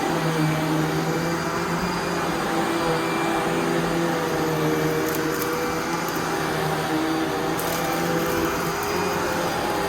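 2008 Hoover Legacy Pet Rewind upright vacuum cleaner running steadily, its motor giving a constant hum over the rush of airflow.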